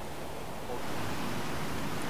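Steady outdoor background noise: an even hiss with no distinct sounds in it, getting a little louder about two-thirds of a second in.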